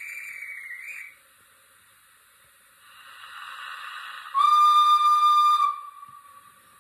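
Hunslet 0-6-0ST model's DCC sound decoder playing its guard's whistle and driver's right-away through the loco's small speaker. A short trilling guard's whistle ends about a second in. Then comes a hiss of steam, and after that a loud steam-whistle blast from the engine, the loudest part, which tails off near the end.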